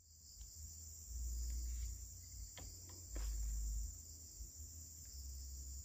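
A steady, high insect chorus, crickets or similar. Low rumbles come and go beneath it on the microphone, with a couple of faint ticks about halfway through.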